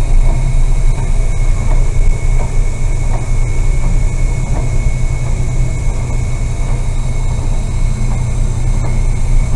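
Fishing boat's engine running with a heavy, steady low rumble and a thin steady whine above it.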